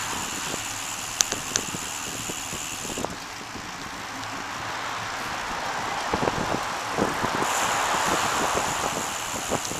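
Wind and road noise picked up by a camera mounted on a moving bicycle: a steady rushing, with a few sharp clicks a little over a second in and a run of knocks and rattles from about six to eight seconds in, when the rushing swells.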